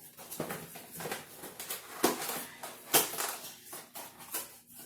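Rustling and clicking of packaging and plastic parts being handled, with two sharper clicks about two and three seconds in.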